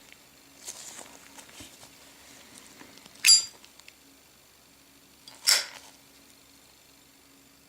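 Zippo windproof lighter handled: faint handling sounds, then two sharp metallic clicks about two seconds apart, the first with a brief high ring like the lid flicking open, the second a shorter clack.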